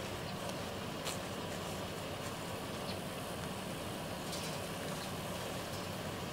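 Pickup truck engine idling steadily in the background, with a few faint light clicks and steps in the grass.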